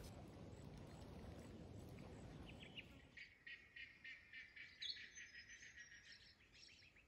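Faint outdoor hiss, then from about three seconds in, small birds chirping in quick repeated high notes.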